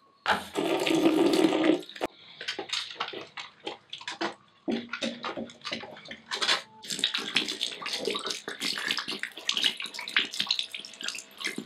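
Tap water running into a washbasin. A loud gush comes just after the start as the tap is turned on, then irregular splashing as hands are washed under the stream.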